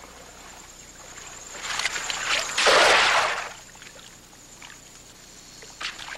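Cast net thrown into shallow creek water: a swish and trickle of water that builds, then one loud splash as the net lands, about two and a half to three seconds in. A few light drips or taps near the end.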